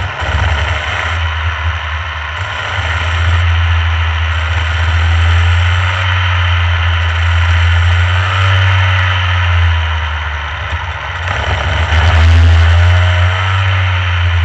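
Rotax Mini Max kart's two-stroke engine running on track, its pitch rising and falling as the throttle opens and closes, loudest about twelve seconds in.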